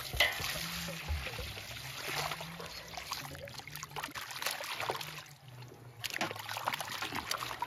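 Water poured from a metal jug splashing into a steel basin of raw liver. Then come the sloshing and swishing of hands rubbing and lifting the meat in the water, with a brief quieter spell about two-thirds of the way in.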